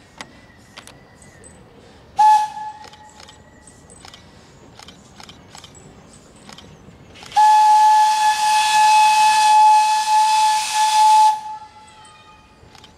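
Whistle of the Thomas the Tank Engine locomotive: one short toot about two seconds in, then a long steady blast of about four seconds over a strong rush of hiss, cutting off sharply. Faint clicks sound in between.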